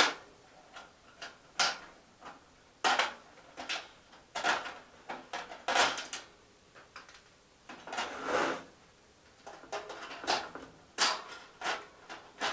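Zip ties being cut off a BioLite Basecamp stove's handle, with scrapes and knocks as the stove is handled: a string of separate sharp snips and scrapes about every second or two.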